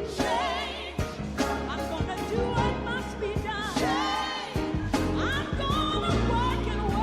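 Gospel music: a singer with vibrato over a band with bass and a steady drum beat, choir voices joining in.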